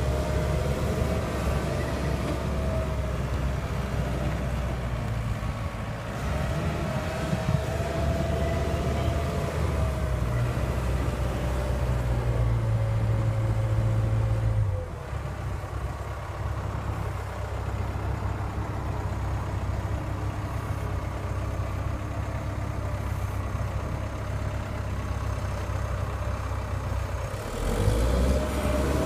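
Komatsu PW160-7 wheeled excavator's diesel engine idling steadily: a low, even drone with a faint whine above it. It drops a little about halfway through and grows louder again near the end.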